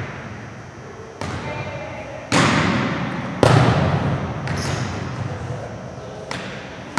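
Volleyballs being hit and bouncing in a gymnasium: about five sharp smacks that echo around the hall, the loudest two about two and a half and three and a half seconds in.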